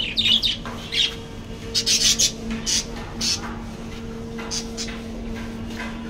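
Budgerigars chirping and squawking in a string of short, high calls that thin out toward the end, over a steady low hum.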